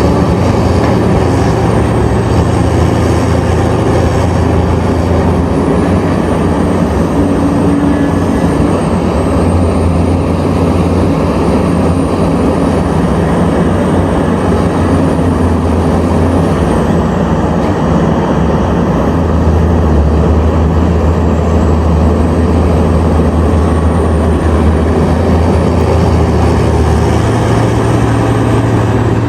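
Heavy diesel mining machinery running steadily with a deep engine drone. The drone's pitch drops a little past halfway through and rises again near the end, and a faint high whine sits above it.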